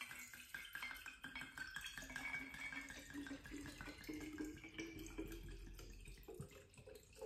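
White wine being poured from a wine bottle into a small glass swing-top bottle: a faint trickle and splash of liquid into glass, with a faint pitch that slowly rises as the bottle fills.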